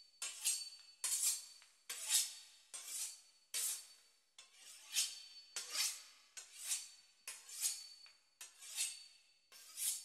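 A knife sawing back and forth through the crisp pastry crust of a beef Wellington. Short, even rasping strokes come a little more than once a second.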